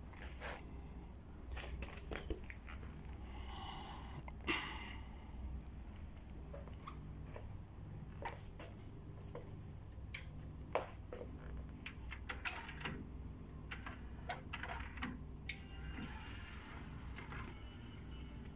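Scattered light plastic clicks and taps, irregular and faint, over a low steady hum: the buttons and front panel of a Sony HCD-H881 mini hi-fi system being pressed and handled.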